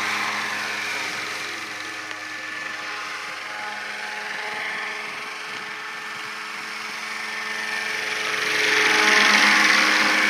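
Radio-controlled AS350 scale model helicopter in flight: the steady whine of its motor and rotors. It fades as the model flies off and grows loud near the end as it passes close overhead.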